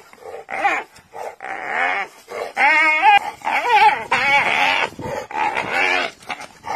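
Spotted hyena squealing and yelping in distress, several wavering high-pitched cries in a row, while a donkey holds its ear clamped in its teeth.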